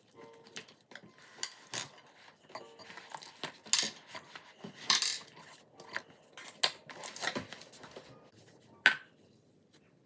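Slime being poked and stretched, giving irregular sticky clicks and pops, with one sharp pop near the end.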